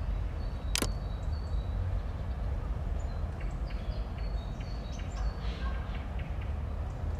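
Outdoor ambience: a steady low rumble with scattered short, high bird chirps, and a single sharp click about a second in.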